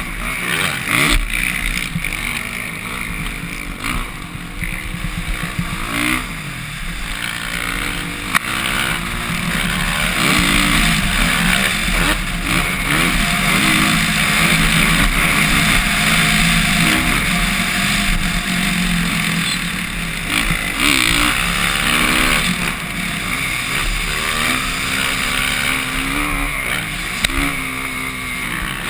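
Dirt bike engine revving up and falling back again and again as it is ridden hard around a motocross track, heard from a helmet camera with wind rushing over the microphone.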